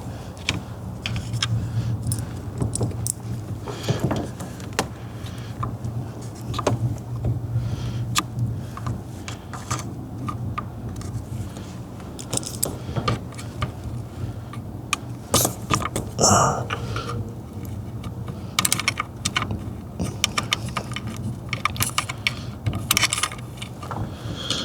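Small metal parts of a car's steering column clicking, tapping and rattling as they are handled and fitted by hand, scattered irregularly throughout, over a steady low hum.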